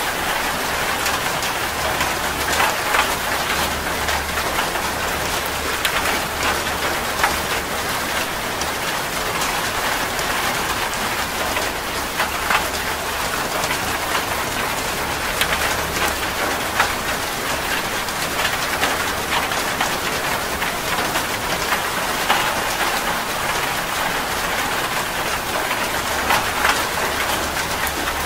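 Steady rain: a dense, even hiss of falling drops with frequent sharper single drop hits.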